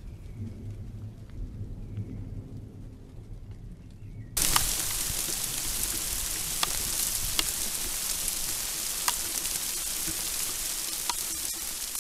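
A low rumble, then about four seconds in a heavy downpour cuts in: a dense, even hiss of rain on grass with a few sharp ticks of drops or hailstones striking close by.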